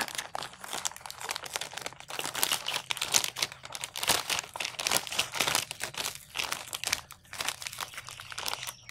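Thin clear zip-lock plastic bag crinkling and rustling in irregular crackles as it is opened and pulled down over a small terracotta pot.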